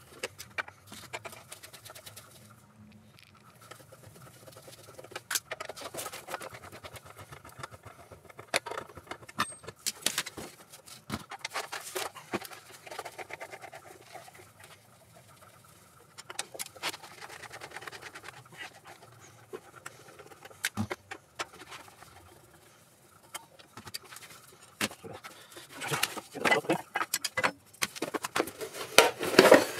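Hand disassembly of a DeWalt air compressor's plastic shroud: scattered clicks, scrapes and knocks of a screwdriver and the plastic cover being worked loose, busiest and loudest near the end as the shroud is pulled off.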